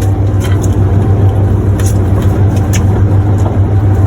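A fishing boat's engine running steadily with a loud, constant low hum, and brief hissy gusts over it.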